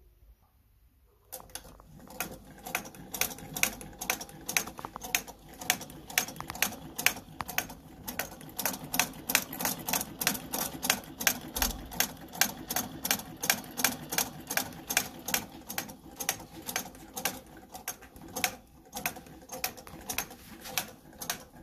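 Vintage Pfaff 11 sewing machine stitching through fabric, starting about a second in. It makes an even mechanical clatter of about three stitch clicks a second over a low running hum, sewing smoothly.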